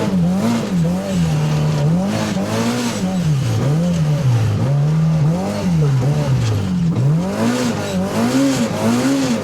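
Turbocharged Polaris RZR Pro R side-by-side engine revving up and down over and over, its pitch rising and falling roughly once a second as the throttle is worked in deep snow.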